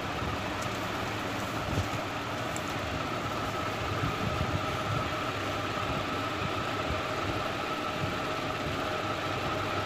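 Steady hum of a running motor, with a faint steady whine over an even hiss.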